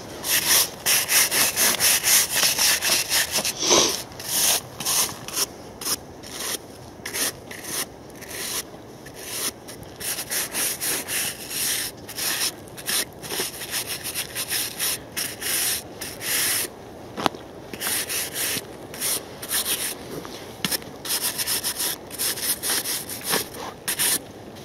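A hand rubbing and scraping caked soil off a rusted, freshly dug-up iron relic in repeated scratchy strokes, a few a second, with short pauses between runs.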